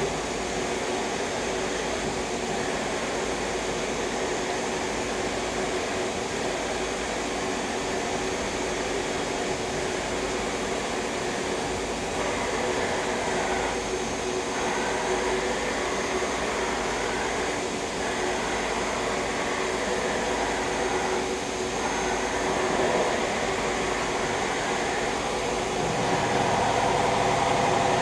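Hardinge VMC800II vertical machining center running under power: a steady mechanical hum with fixed tones, some gliding pitch changes in the middle, and a louder, more tonal sound setting in about two seconds before the end.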